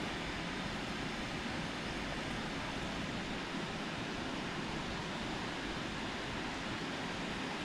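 Steady outdoor rushing noise with no distinct events, like wind or nearby water.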